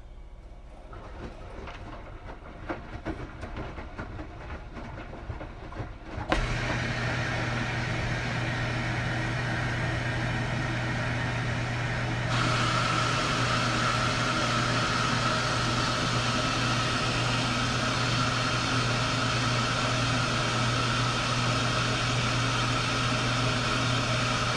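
Washing machine running. The first six seconds hold irregular knocks and clatter. Then a motor starts suddenly with a steady low hum and rushing sound, and about halfway through a louder hiss and a steady higher whine join in.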